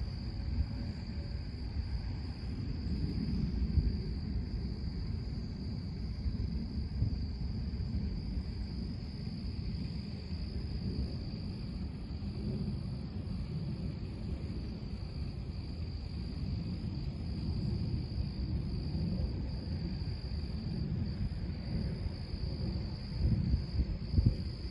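Distant thunder rumbling low in slow rolling swells, loudest near the end, over a steady high chirring of night insects.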